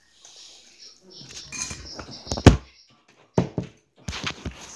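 Several sharp knocks and clattering with rubbing noise close to the microphone, as things are handled right by it; the loudest knock comes about two and a half seconds in, then a quick cluster of knocks near the end.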